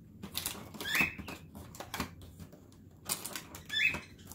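Cardboard advent calendar boxes and small packages being handled: a run of rustles and light clicks, with two short high squeaks, about a second in and near the end.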